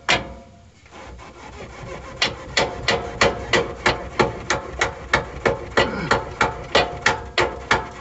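Hammer striking the steel lower A-arm of a GMC motorhome's front suspension, driving it into line with the torsion bar end. One blow near the start, then from about two seconds in a steady run of blows about three a second, each with a short metallic ring.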